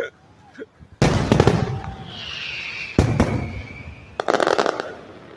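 Aerial fireworks display: two loud shell bursts about two seconds apart, each followed by a rumbling echo. A high whistle carries between them, and a short burst of crackling comes near the end.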